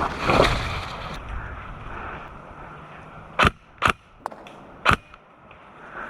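Three sharp cracks of airsoft gunfire, the first two about half a second apart and the third about a second later, after a short rush of noise at the start.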